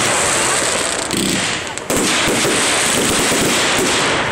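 Fireworks display at full intensity: a dense, continuous barrage of bangs and crackles, with a brief lull just under two seconds in.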